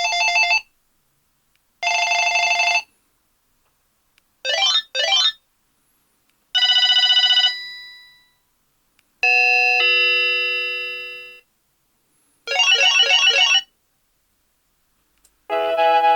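Panasonic KX-TG8125 cordless phone playing its ringtones one after another, each a short electronic sample followed by a pause. In turn come trilling rings, a quick double warble, two bell-like chimes that ring on and fade slowly, and another trill. Near the end a melodic tune begins.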